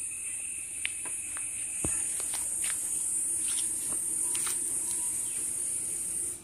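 Steady high-pitched insect chirring, with a few faint clicks over it.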